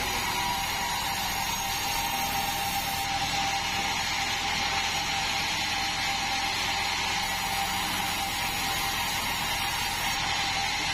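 Band sawmill running steadily, a constant mechanical noise with a steady high whine through it.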